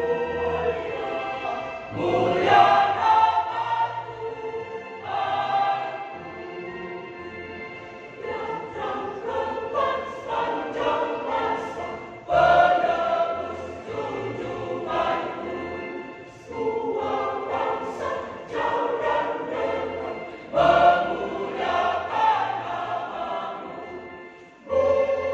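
Church choir singing in parts, in phrases that swell with strong new entries about 2, 12 and 21 seconds in.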